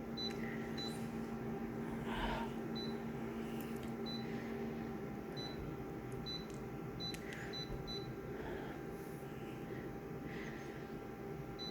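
Photocopier running with a steady hum while printing copies, with short high beeps sounding every so often. A low hum in it stops about five seconds in.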